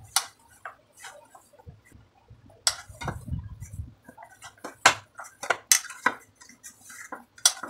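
Hands kneading soft semolina dough in a metal bowl: irregular knocks and clinks of the bowl as the dough is pressed and turned, a few sharper ones near the middle.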